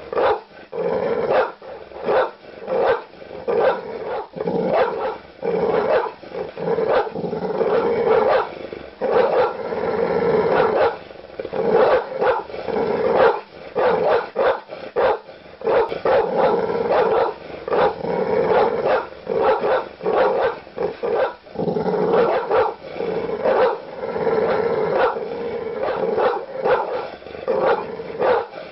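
Large dog barking aggressively in deep, loud barks, in fast runs of about two or three a second with barely a pause between them.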